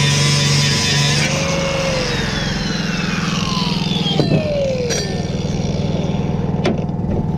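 A vehicle engine running steadily with an even low hum, a hiss that stops about a second in, and a few sharp clicks later.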